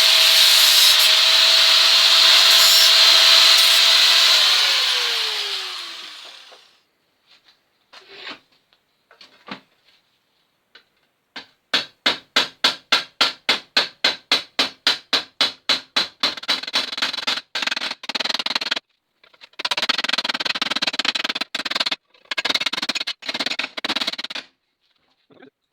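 A power tool running with a steady whine, then switched off and spinning down about four seconds in. After a few scattered scrapes comes a quick run of rhythmic hand strokes on the steel repair panel, about five a second, followed by several longer rasping passes, typical of hand filing or sanding.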